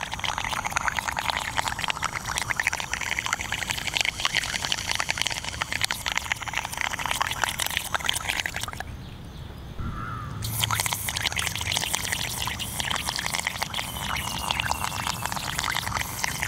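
Air from a deflating balloon escaping through a drinking straw under the water, bubbling and crackling steadily as it jets the Styrofoam toy boat along; it drops away briefly about nine seconds in, then resumes.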